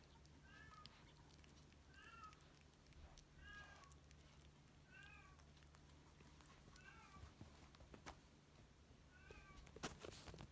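Kitten mewing faintly: six short, high-pitched mews, each rising then falling, about one every one and a half seconds. A brief rustle comes near the end.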